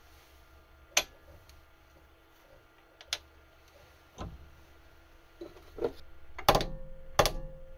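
Steel 1-2-3 block and metal workpiece being placed and seated in a milling-machine vise: a series of separate metal clinks and knocks, the two loudest near the end, the last leaving a short ringing tone, over a low steady hum.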